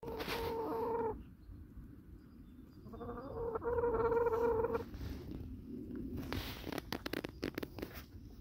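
A chicken giving two long, even calls, the first about a second long and the second nearly two seconds, followed from about six seconds in by a run of light clicks and rustles.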